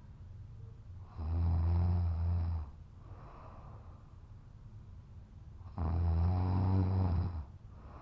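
A man snoring while passed out drunk: two loud, low snores of about a second and a half each, with quieter breaths out between them.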